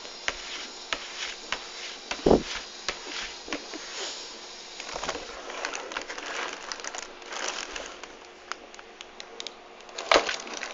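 A cat batting and pawing at a cardboard cereal box: scattered taps and rustles of cardboard, with two louder thumps, one about two seconds in and one near the end.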